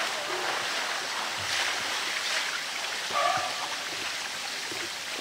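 Steady rushing of water from rain and running water, with a short voice-like call about three seconds in.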